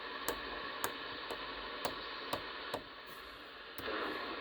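Channel selector of a Superstar 360 FM CB radio clicking through its detents about twice a second while tuning across the band. The receiver puts out steady hiss from its speaker, which dips briefly and comes back louder near the end.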